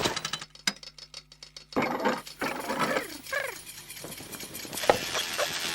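Cartoon sound effects: a fast, even rattling clatter for about a second and a half, then a character's wordless gliding vocal sounds, with a single click near the end.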